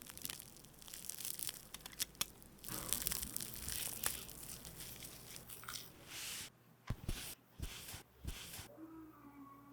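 Irregular workshop handling noises: scraping, tearing-like rasps and clicks, then a few separate short bursts with dull knocks in the second half.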